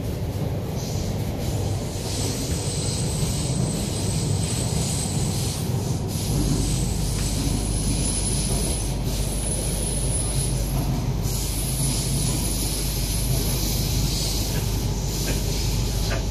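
Interior running noise of an MTR K-Train: a steady rumble from wheels and rails with a thin high wheel squeal through the middle. A low steady hum sets in about six seconds in.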